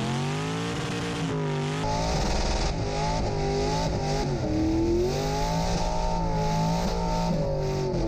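LS-swapped V8 of a Chevy S-10 burnout truck revving hard, its pitch rising and falling over and over. After about two seconds it is heard from inside the cab, with a heavier low rumble.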